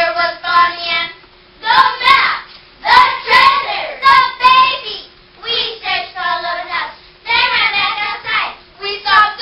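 Children's voices performing a verse choir (choral speaking): young girls reciting lines of a poem aloud in an expressive, half-sung way, in short phrases with some drawn-out notes and brief pauses between them.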